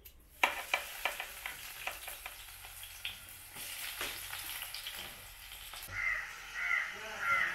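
Food sizzling in hot oil in a pan, starting suddenly about half a second in, with the clicks and scrapes of stirring. Near the end a crow caws three times.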